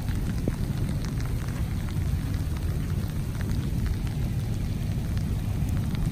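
Steady rush of shallow storm runoff flowing across a road, with wind rumbling on the microphone and scattered small ticks.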